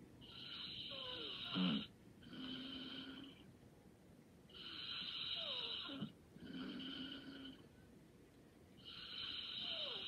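Light snoring in a steady rhythm, one breath about every four seconds: a raspy breath in that ends in a falling whistle, then a shorter, softer breath out.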